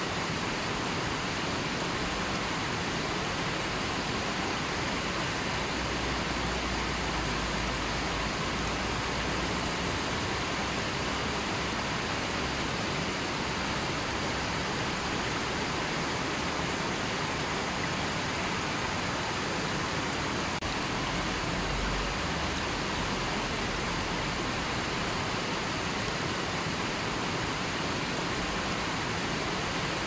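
A fast, shallow river rushing over boulders and stones: a steady, unbroken wash of water noise.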